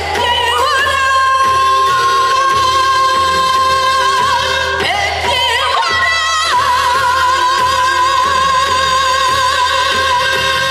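A woman's voice singing into a hand-held microphone over the PA in a Korean traditional, pansori-trained style, holding long high notes with a wide, slow vibrato. There is a short break between phrases about five seconds in.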